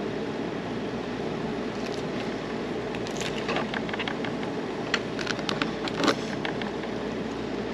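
Knife work on a fish at a cleaning table, with a cluster of short sharp clicks and scrapes from about three to six seconds in, over a steady background hiss.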